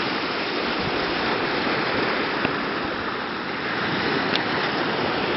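Small waves washing onto a sandy shore, a steady hiss of surf.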